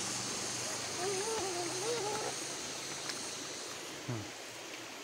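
Steady rush of running water, with the hum of a motorbike engine fading away. A short wavering voice sounds between one and two seconds in.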